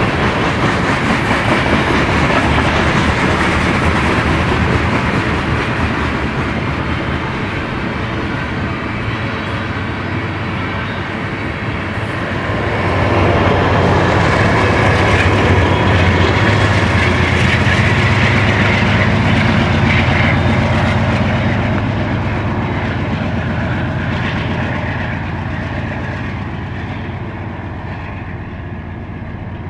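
Long BNSF covered-hopper freight train rolling past, its wheels clicking over the rail joints. About halfway through, the deep engine drone of the rear diesel locomotives swells as they pass, then fades as the train pulls away.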